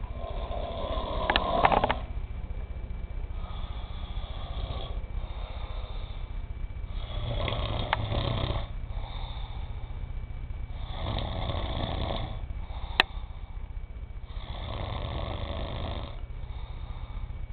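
Two sleepers snoring, a rough breath sound every couple of seconds. A single sharp click comes about three-quarters of the way through.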